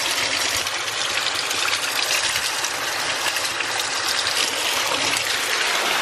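Waterfall close up: a steady rush of falling, splashing water.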